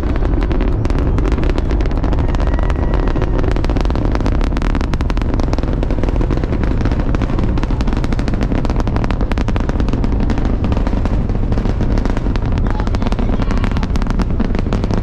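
Rocket engine roar from SpaceX's Starship Super Heavy booster, a steady deep rumble shot through with dense crackling.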